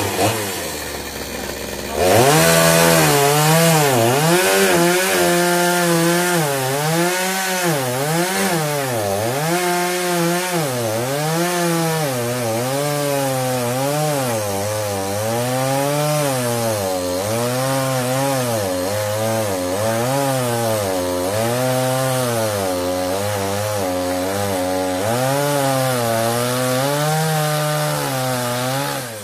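Chainsaw revving up about two seconds in and cutting through a log, slicing a thin cap off its end. Its engine pitch rises and dips over and over as the chain bites into the wood, and it drops back at the very end.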